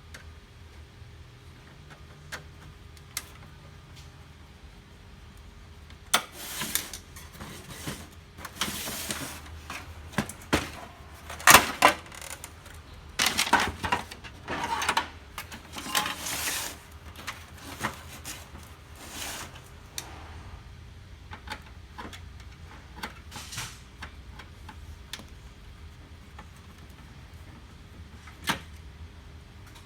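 Plastic parts of a laser printer being handled during disassembly: scattered sharp clicks and short scraping rustles, busiest in the middle and sparser towards the end, over a faint steady hum.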